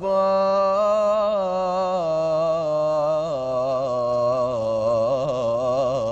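A solo male voice singing in Arabic style, holding long ornamented notes with a wavering melismatic line, and stepping down to a lower note about three seconds in.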